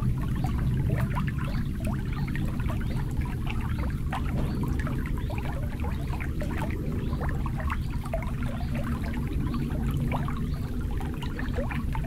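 Water lapping and trickling against the shore: a continuous patter of small bubbly splashes over a steady low rumble.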